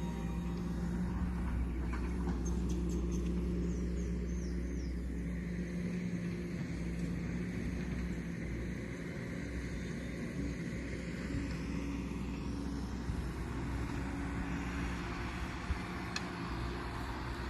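Hydraulic excavator's diesel engine running steadily with a low hum, with a few short high chirps about three seconds in.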